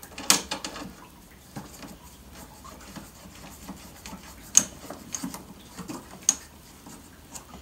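Faint rubbing and small clicks of a plastic quick-release knob being screwed onto a lawnmower handle bolt, with a few sharper clicks, the loudest about four and a half seconds in.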